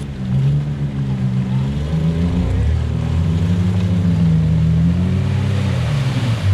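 Off-road SUV's engine revving hard under load, its pitch rising and falling, as it churns through a deep mud-and-water hole.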